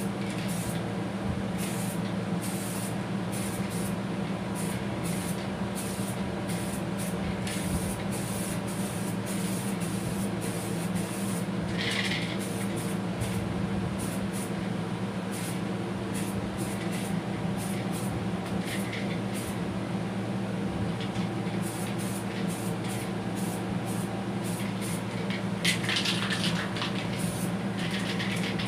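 Short, repeated bursts of hiss from a 2K clear-lacquer aerosol spray can coating the part, over a steady low hum.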